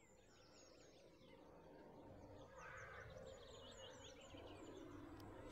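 Faint birdsong of short, repeated chirps over a low, steady outdoor background, the whole fading in gradually.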